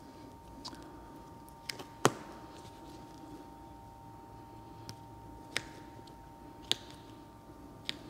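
Crescent diagonal cutters snipping off the ends of a rubber tire-repair plug close to the tread: about seven sharp snips spaced a second or so apart, the loudest about two seconds in.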